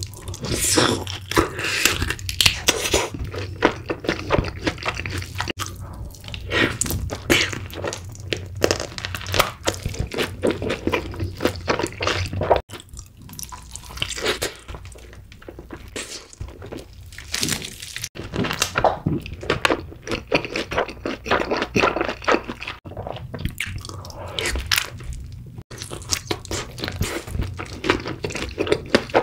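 Close-miked eating of fried chicken smothered in cheese sauce: bites into the crispy coating and chewing, a dense run of crunches and mouth clicks that breaks off abruptly a few times.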